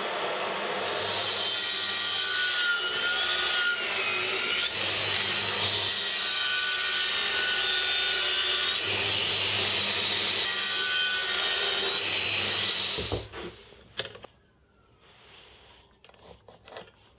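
Table saw running and cutting plywood as a crosscut sled is pushed through the blade, a whine with cutting noise that swells three times. About 13 seconds in the noise cuts off, followed by a sharp knock and a few light knocks.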